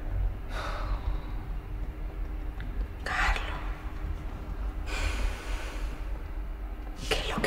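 Three soft, breathy puffs of a person breathing, a couple of seconds apart, over a steady low rumble and faint hum of room tone.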